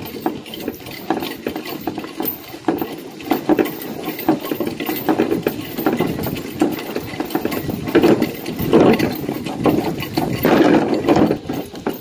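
Percheron–Standardbred cross draft horse walking in harness through deep snow: an uneven run of hooves crunching in the snow, with the sled it pulls sliding along and the shafts and harness clicking and rattling, heavier for a few seconds near the end.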